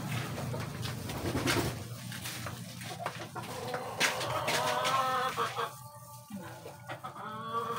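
A rooster crowing twice in the background, once about halfway through and again near the end, over the wet clicks and squelches of a gloved hand working marinated pork pieces in a steel basin.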